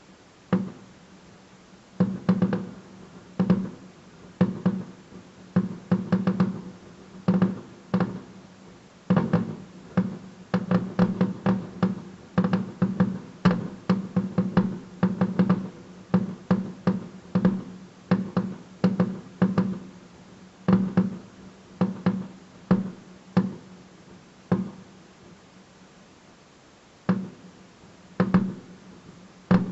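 Fireworks display: shells bursting in quick, irregular succession, each bang with a short echoing tail, thinning to a few bangs for a while near the end before picking up again.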